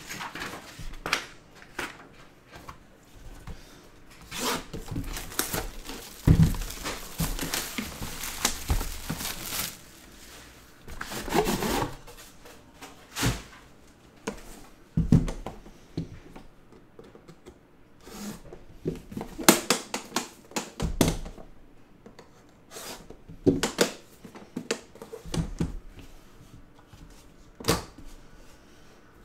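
Handling of a metal briefcase-style trading-card box on a desk: scattered sharp clicks, knocks and dull thunks. A denser stretch of rustling comes around the middle.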